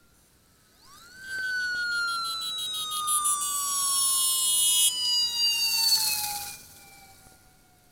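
Police motorcycle siren: one wail that rises quickly about a second in, then slowly falls in pitch for several seconds. It is loudest as the motorcycle passes close by and fades after about six and a half seconds.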